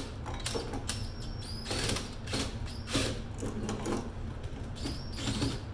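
Cordless drill driving screws into a steel outlet box cover in repeated short spurts, its motor whine rising at the start of each.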